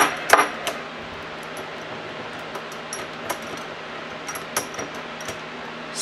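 Small metallic clicks and taps from a brass lock being handled in a cast-iron bench vise, with a few sharper clicks in the first second and faint scattered ticks after, over a steady hiss.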